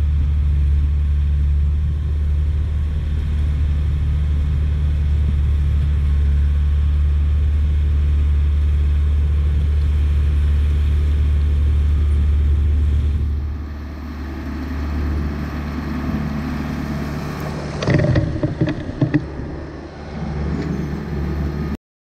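Caterpillar D4C bulldozer's diesel engine working under load as its blade pushes loose shale, a steady low drone that eases about 13 seconds in. About 18 seconds in comes a second or so of clattering as the shale pile tumbles close by.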